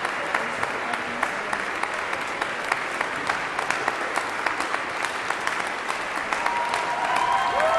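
Concert-hall audience applauding steadily, a dense patter of many hands clapping. Near the end a few held tones rise over the clapping and the applause swells slightly.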